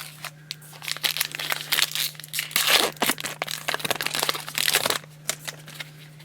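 Trading-card pack wrapper crinkling and crumpling as it is handled and opened, from about a second in until about five seconds in.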